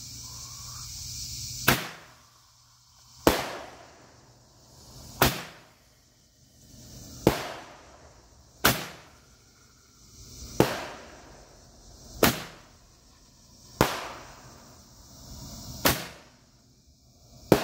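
Hand-held Roman candle firing about ten shots, one every one and a half to two seconds; each is a sharp pop preceded by a hiss that builds as the charge burns down.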